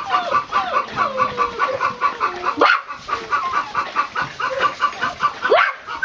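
Puppies whimpering and yipping: whines that slide up and down in pitch, with a sharp rising yelp about midway and again near the end, over a fast, even run of squeaky chirps, about six a second.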